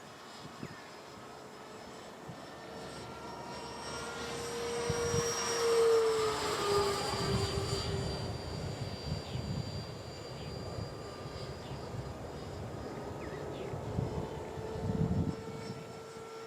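E-flite Viper 70mm electric ducted-fan RC jet flying past: its high fan whine swells to its loudest about six seconds in and drops in pitch as it passes, then carries on as a steady, fainter whine. A low rumble comes near the end.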